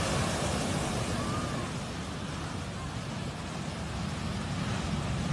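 Heavy ocean surf washing over the shore, with wind rumbling on the phone's microphone: a steady, noisy wash that dips slightly in the middle and builds again near the end.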